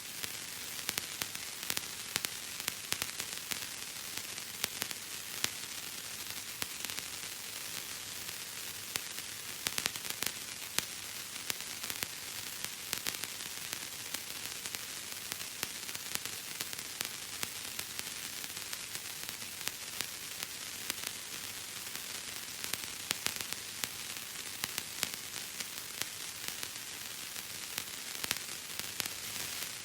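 Bubble wrap being squeezed and popped: a run of small sharp pops and crackles at an uneven pace, several a second, over a steady hiss.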